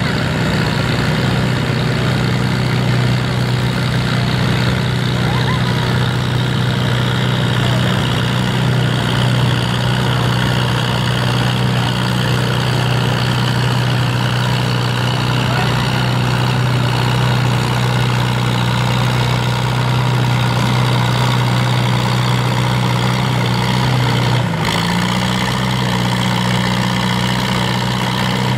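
Farmall H tractor's four-cylinder engine running steadily under load as it pulls a weight-transfer sled at low speed. The engine note steps up in pitch about three-quarters of the way through, as the pull ends.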